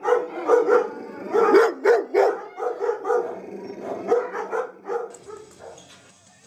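Dog barking repeatedly in a shelter kennel, about two or three barks a second, the barks thinning out and stopping about five seconds in.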